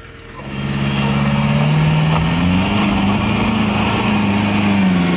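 Off-road buggy's engine revving under load as it climbs a dirt bank. It comes in loudly about half a second in, climbs in pitch midway and holds there.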